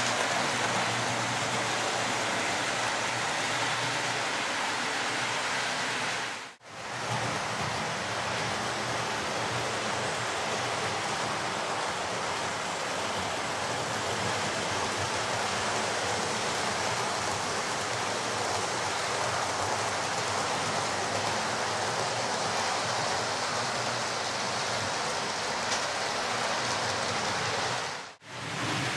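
Model trains running on the layout's track: a steady rushing whirr of wheels and motors that drops out suddenly twice, briefly, about six seconds in and near the end.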